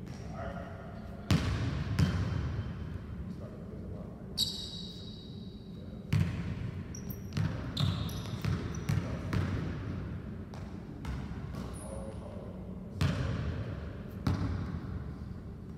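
Basketball dribbled on a hardwood gym floor, an irregular series of sharp bounces, with short high sneaker squeaks, the longest about four seconds in.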